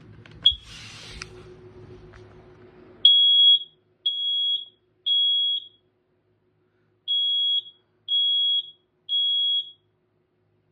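Kidde smoke and carbon monoxide alarm sounding on its test button, with a short chirp and some handling noise first. About three seconds in, loud high-pitched beeps start in groups of three with a pause between groups: the temporal-three smoke alarm evacuation pattern.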